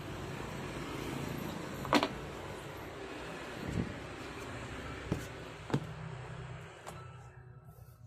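Cables being unplugged from a mixing console and gear handled: sharp clicks and knocks, the loudest about two seconds in, then others near four and five and a half seconds, over a steady low rumble that fades near the end.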